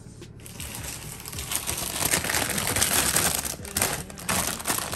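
Plastic cracker packet crinkling and crackling as it is pulled open by hand, loudest in the middle.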